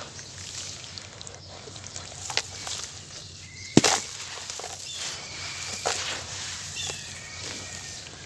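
Lumps of dry sand-cement being crushed by hand: a faint gritty crunching broken by scattered sharp cracks, the loudest about four seconds in.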